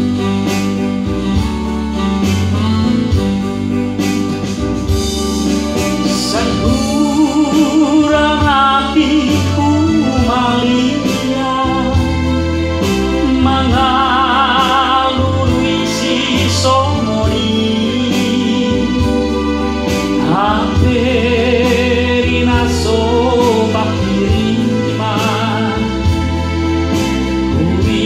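A man singing a Batak folk song with a wavering vibrato, to his own arranger keyboard playing chords over a bass and rhythm backing. The voice comes in about five seconds in, over the keyboard.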